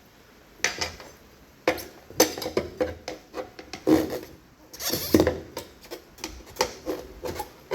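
Tire irons prying a dirt bike tire's bead up over the wheel rim: irregular clicks and knocks of the irons against the rim and tire.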